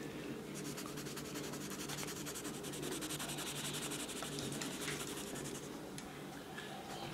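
Wax crayon scribbling on a colouring-book page: quick, even back-and-forth strokes rubbing on the paper, stopping about five and a half seconds in.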